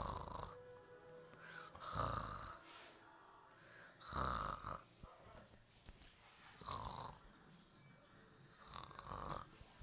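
A man snoring in his sleep: five snores, about two seconds apart.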